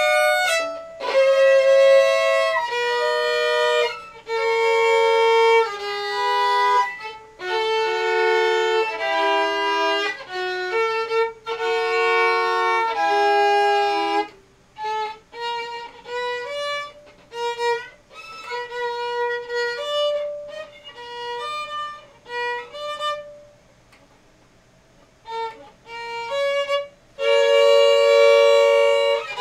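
Violin bowed in scale practice: for about the first half, a slow run of double stops in thirds, two notes sounding together. After that come short single notes with brief pauses, and near the end two-note double stops again.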